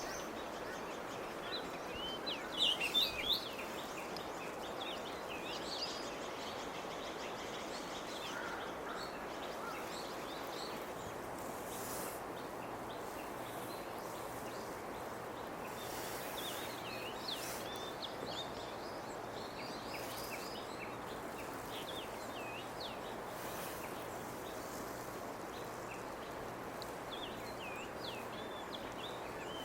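Small songbirds calling in short, high chirps, in scattered clusters, the loudest a few seconds in and another busy run around the middle. Under them runs a steady outdoor background hiss.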